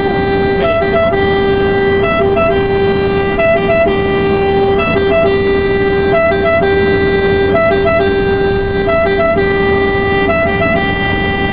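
Italian ambulance's two-tone siren sounding continuously on an emergency run, switching back and forth between a low and a high note in a somewhat uneven rhythm, over steady road noise heard from inside the cab.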